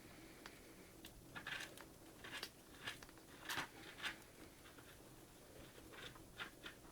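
A degu without upper incisors eating soft pap: faint, short, irregular wet smacking and snuffling noises, several in a row.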